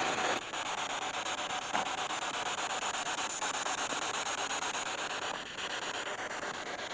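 Spirit box sweeping through radio stations: a steady hiss of static chopped into rapid, evenly spaced pulses.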